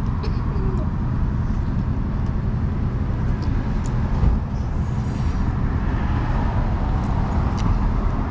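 Steady low rumble of background noise, with a few faint clicks.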